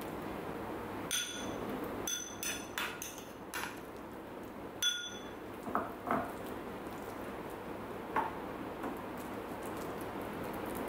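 Metal cutlery clinking and tapping against a plate while a topping is spread on a slice of bread. There is a quick run of sharp, ringing clinks in the first five seconds, then a few softer taps.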